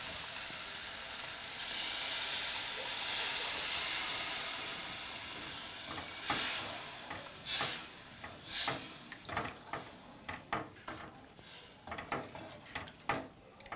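Liver and tomato stew sizzling in a hot aluminium pot as a little water goes in: a hiss that swells about a second and a half in and slowly dies down. Then a wooden spoon stirring, scraping and knocking against the sides of the pot.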